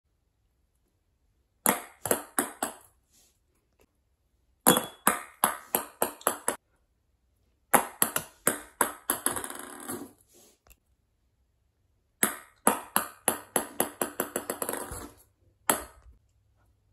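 Ping-pong ball bouncing on a wooden floor in four separate runs of quick taps, each coming faster and fainter as the ball settles, then a single tap near the end.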